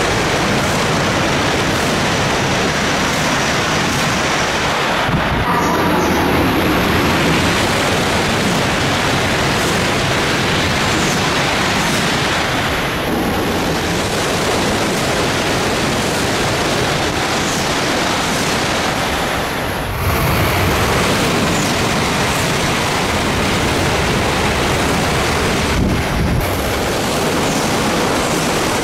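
Shinkansen bullet trains passing non-stop through a station at high speed: a loud, continuous rushing of air and wheels. It changes abruptly about 5, 13, 20 and 26 seconds in.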